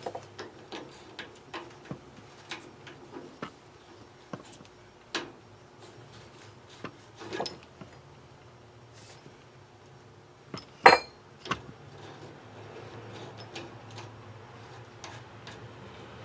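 Scattered light metallic clinks and taps from a garden hose's threaded coupling being worked onto an old boiler's drain valve, with one louder sharp clank about eleven seconds in.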